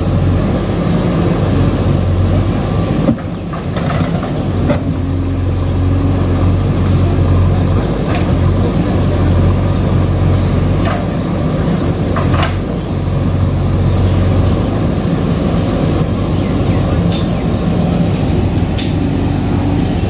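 JCB backhoe loader's diesel engine running steadily under load as the backhoe arm digs, its loudness rising and falling a little, with a few brief knocks.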